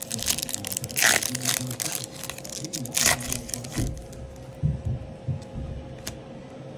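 Foil wrapper of a trading-card pack being torn open and crinkled, with two louder rips about a second and three seconds in, then quieter handling of the cards.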